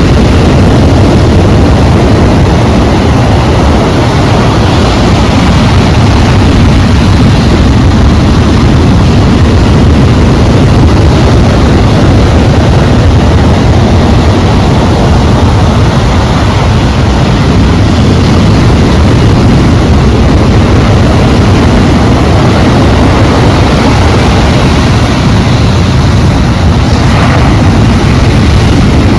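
Sea waves and wind making a loud, steady roar, heaviest in the low rumble.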